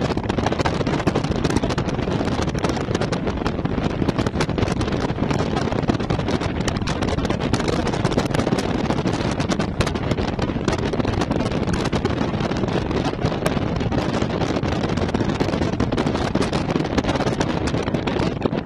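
Loud, steady wind rushing and buffeting over the camera microphone, with constant small crackles, from the airflow of a paraglider in flight.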